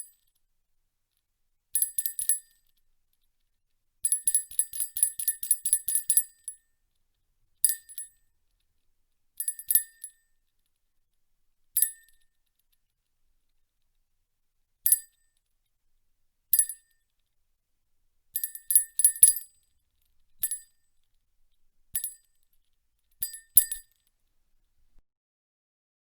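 Tiny bells jingling: bursts of rapid high-pitched jingles, some quick runs of shakes and some single shakes a second or two apart, with silences between.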